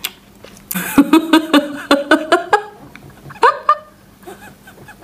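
A woman laughing: a quick run of short, pitched ha-ha pulses starting about a second in, then a brief laugh again at about three and a half seconds.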